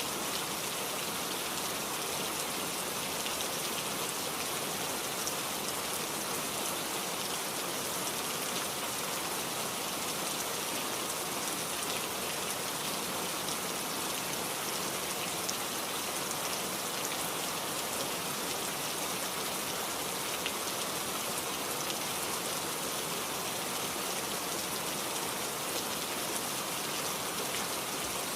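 Heavy rain falling steadily, a dense even hiss with many fine drop ticks on a hard surface.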